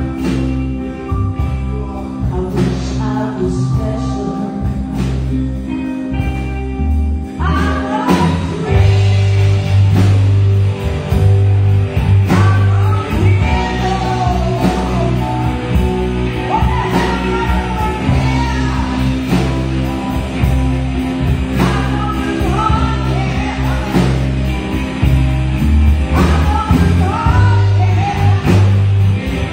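Live rock band playing a cover song: a woman singing lead over electric guitar, keyboards, bass and drums. About seven seconds in, the full band comes in heavier and louder.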